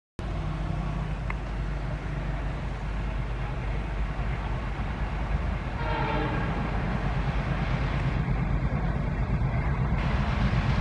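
A pair of Indian Railways diesel locomotives hauling a train, their engines rumbling steadily and growing slowly louder as they approach. A short horn blast sounds about six seconds in.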